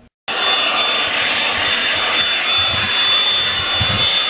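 Cordless handheld vacuum running steadily, a rush of air with a high whine over it, as it picks up sanding dust from a towel. It cuts in abruptly a moment after the start.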